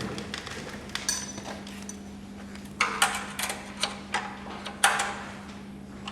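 Irregular metallic clinks and taps of tools, nuts and screws being handled while fastening an aluminium skid plate to a motorcycle, over a faint steady hum.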